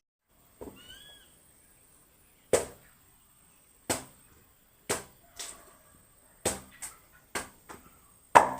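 Chopping with a blade: about ten sharp, irregular strikes, some coming in quick pairs.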